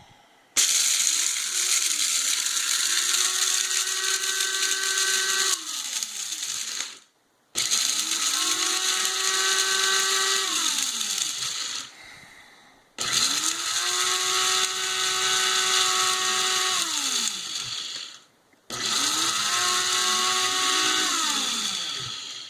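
Gloria Jeans electric coffee bean grinder grinding whole black peppercorns, run in four pulses of about four to six seconds each: the motor whines up to speed, runs with a gritty hiss, then winds down when released.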